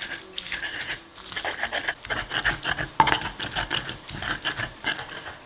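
Stone pestle grinding and crushing fresh chilies, shallots and garlic with salt in a volcanic-stone mortar (Indonesian cobek and ulekan): quick, rhythmic scraping and squashing strokes, several a second, with stone clicking on stone and one sharper knock about three seconds in.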